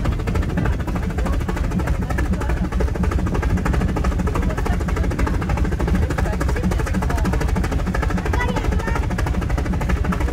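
Brienz Rothorn Bahn rack-railway carriage in motion, heard from on board: a steady, loud, low rumble of the train running on the mountain track.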